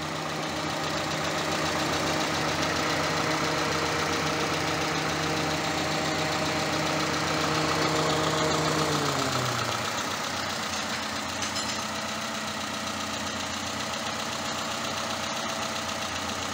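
Peugeot 206 petrol engine, a freshly installed replacement at working temperature, idling steadily during its test run. About nine seconds in, a pitched part of the hum drops lower and fades, and the sound gets slightly quieter.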